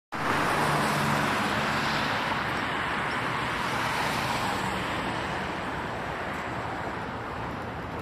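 Road traffic noise: a car's tyres and engine on the street, loudest at the start and slowly fading.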